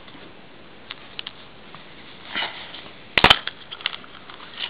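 Small toy packaging being opened by hand: a few light clicks and a short rustle, then a sharp crackling snap about three seconds in.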